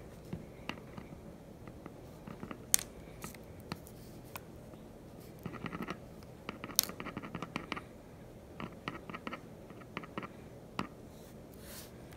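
A hot glue gun's metal tip and a wax floor-repair crayon scratching and tapping on a laminate wood floor as the wax is melted into a dent. There are a few single sharp clicks and short runs of quick ticking scrapes, most of them about halfway through.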